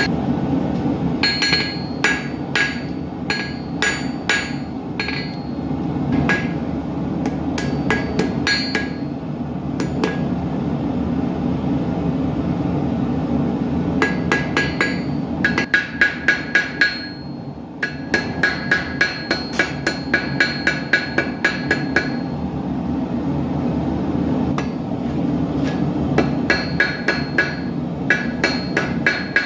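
Hand hammer striking hot steel on an anvil in quick runs of about four blows a second, each blow ringing, with a pause in the middle. Underneath is a steady roar, typical of a gas forge burning.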